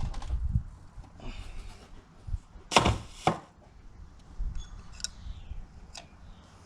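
Scattered clicks and knocks from hands handling the plastic oil filter cap and the paper filter cartridge just pulled from the housing. The loudest is a pair of knocks about three seconds in, with lighter ticks near the end.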